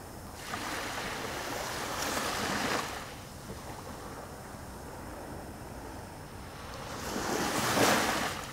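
Small waves washing up onto a beach, surging twice: once from about half a second in for two seconds, and again, louder, near the end.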